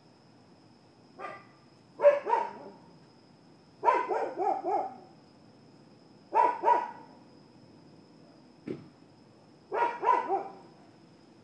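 A dog barking in short bursts of two to four barks, the bursts a couple of seconds apart.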